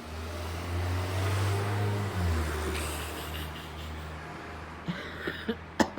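Car engine running as the car drives off: a low hum, loudest early, that drops in pitch a little after two seconds and fades away. A few sharp knocks near the end.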